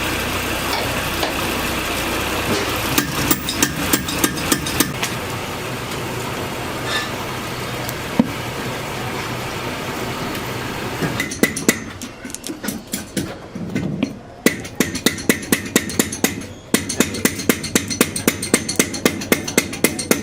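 Steady machinery noise with a few scattered clicks. About halfway through it gives way to a regular series of sharp metal knocks, about two to three a second, like repeated hammering or punching of metal.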